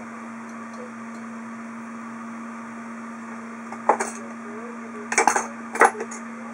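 A few sharp metallic clicks and clinks of small hand tools being handled on a wooden workbench: one about four seconds in, then a quick cluster in the last second and a half. A steady low hum sounds underneath.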